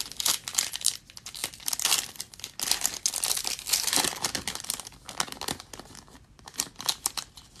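Foil wrapper of a Panini Prizm football card pack crinkling and tearing in irregular bursts as it is worked open by hand, with some struggle to get it open.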